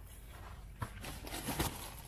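Footsteps through dry grass close to the microphone, rustling, with two louder steps a little under a second in and about a second and a half in.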